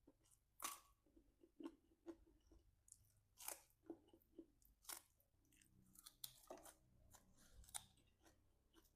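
Close-up chewing of raw lalapan vegetables: irregular crisp crunches as bites break the fresh leaves and stems, with softer mouth sounds between them.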